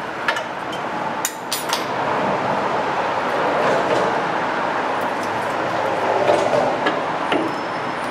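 Steady rushing background noise, with a few sharp clicks and taps from metal brake parts being handled.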